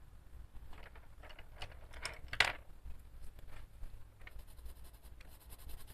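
Wooden colored pencils clicking and rattling against each other as one is picked from a loose pile, the loudest clack about two and a half seconds in, then a few light taps and faint pencil scratching on paper near the end.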